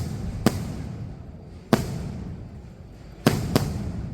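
Fireworks going off: a run of sharp, loud bangs, about one every second or so with the last two close together near the end, each trailing off in a low rumbling echo.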